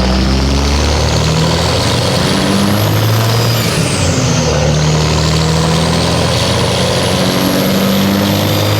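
Factory turbocharger on a 5.9 Cummins diesel whistling over the engine, its compressor silencer ring moved and intake baffles removed to make it louder. The whistle climbs in pitch, drops away quickly a few seconds in, then climbs again as the engine pulls.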